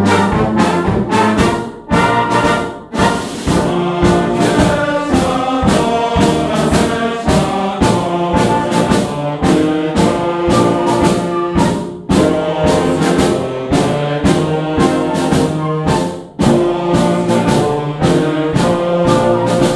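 Youth wind orchestra playing: brass and woodwinds (trumpets, flutes, clarinets) in full held chords, with a few brief breaks between phrases.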